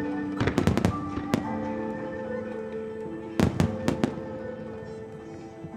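Aerial firework shells bursting in quick clusters of sharp bangs: several close together around half a second to a second in, and another flurry of about four around three and a half seconds in. Music with long held notes plays underneath.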